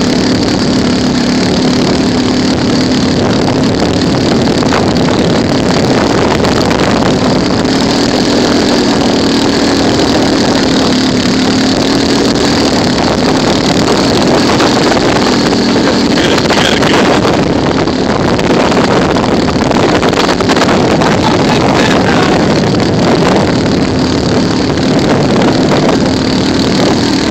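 Engine of a vehicle towing a sled, running steadily with its pitch shifting only slightly, over a rush of wind and travel noise.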